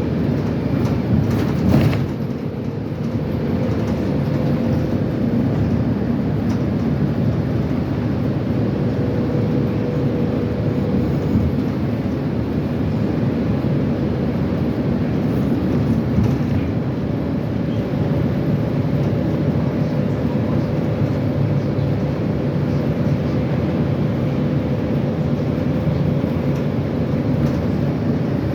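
Metro train running on the rails, heard from on board: a steady low rumble with a steady whine, and a brief louder clatter about two seconds in.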